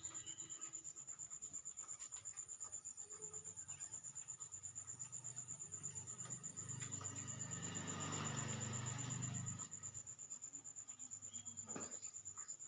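Cricket chirring in a steady, rapid, high-pitched trill. From about five seconds in, a louder low hum with a rushing noise swells and then cuts off suddenly near ten seconds. A single click comes near the end.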